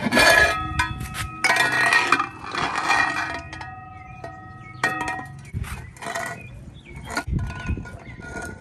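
Metal pots and bowls clanking together, each knock leaving a ringing tone that hangs for a second or more; the knocks come thick in the first few seconds, then more sparsely.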